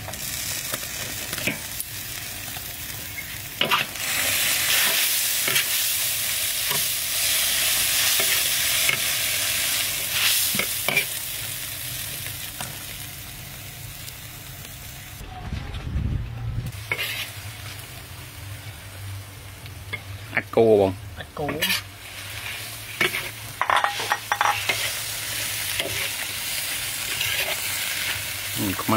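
Vegetables sizzling and hissing in a hot wok as sliced peppers, carrots and okra go in and are stir-fried. A metal utensil stirs, scrapes and knocks against the pan throughout. The hiss is loudest in the first half and then dies down.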